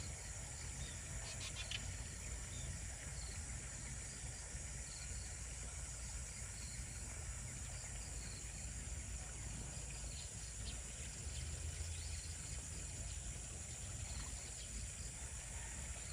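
Rural outdoor ambience: a steady high insect drone, with scattered short bird chirps and a low rumble underneath.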